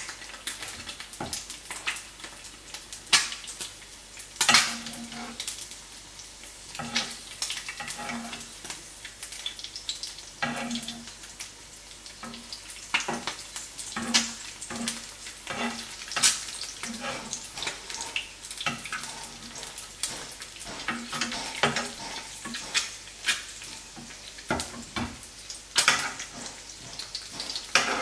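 Eggs sizzling as they fry in a nonstick frying pan, with a metal spoon scraping and tapping against the pan many times at irregular intervals.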